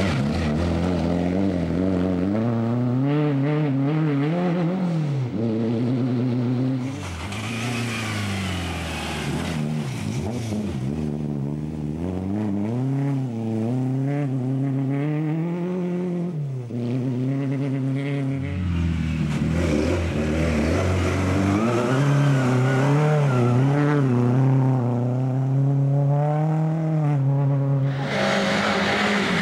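Lada rally car's four-cylinder engine revving hard on a gravel stage, its pitch repeatedly climbing and dropping as it shifts gears and lifts for corners, over several passes.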